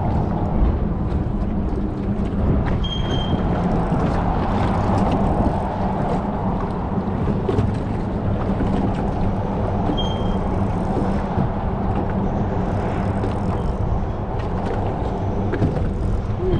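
Boat motor running steadily at an even pitch, with a continuous low rumble under it.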